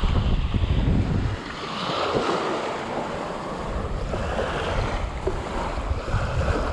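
Small waves washing in on a sandy beach, with wind buffeting the microphone for about the first second and a half.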